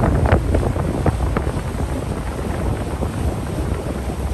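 Wind rumbling on the microphone aboard a moving boat, mixed with water noise, with a few short crackles in the first second and a half.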